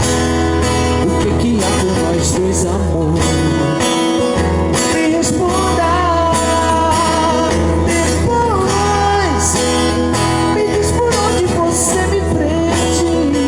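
A singer performing a pop/MPB song live, accompanied by a strummed acoustic guitar, picked up by a camera's built-in microphone. The voice holds and slides between notes over the steady guitar.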